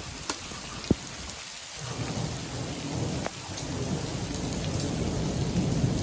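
Steady rain pouring onto pavement and grass, with a low thunder rumble building from about two seconds in. Two sharp ticks come within the first second.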